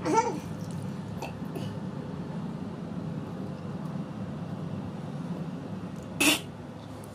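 A woman gagging and retching while deliberately trying to vomit after eating bananas: a short voiced gag right at the start, then a loud wet retch or spit about six seconds in, over a low steady hum.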